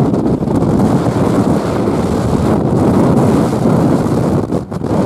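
Wind buffeting the microphone of a moving motorcycle: a loud, uneven low noise with no clear engine note, dipping briefly near the end.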